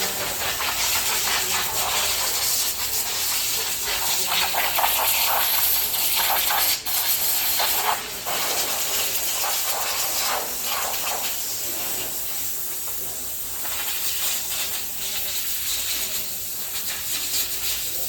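Air blowing from a nozzle in a long steady hiss, clearing dust off garage door hinges and track before they are lubricated; the blast cuts out briefly twice, about seven and eight seconds in.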